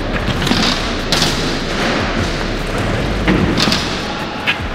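Dirt scooter riding on a plywood skatepark ramp: air-filled tyres rolling with a steady rumble, broken by a handful of sharp knocks and thuds from the scooter hitting the wood.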